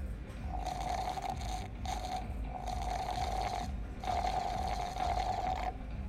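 Protein shake being sucked up through a straw from a large jug: four long slurping pulls, separated by short breaks.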